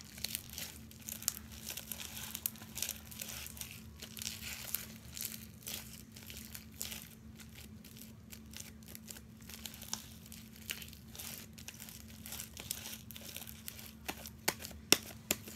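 Clear glitter slime being worked and stretched in its container: irregular sticky crackles and small pops, with a faint steady hum underneath.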